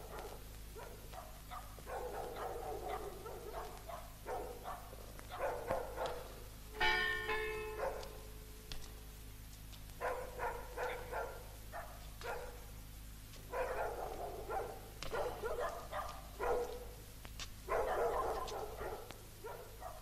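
Dogs barking in repeated bouts of a second or two, with a single ringing note about seven seconds in.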